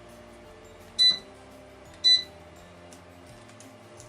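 Two short electronic beeps about a second apart from an electric fireplace-heater's controls, as buttons are pressed to switch it off, over faint background music.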